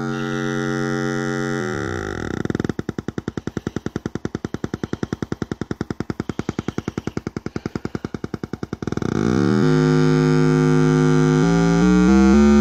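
Infrasonic sound generator playing through its speaker: a buzzy electronic tone that steps down in pitch as the frequency knob is turned, breaking into a rapid rattle of even pulses for about six seconds. The pitch then steps back up to a steady buzzing tone, and it climbs again in steps near the end.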